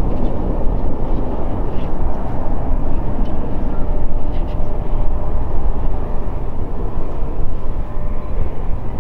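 Airbus A400M's four Europrop TP400-D6 turboprop engines on final approach to land: a loud, steady rumble, with a faint steady tone coming in during the second half.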